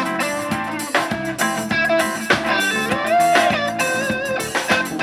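Instrumental break of a Brazilian pop song: an electric guitar plays a lead melody with bent notes over strummed guitar, bass and a drum kit.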